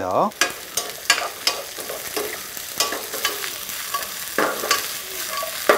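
Sliced carrot and zucchini sizzling in hot oil in a wok as they are stir-fried with a wooden spoon, with frequent light clicks and scrapes of the spoon against the pan.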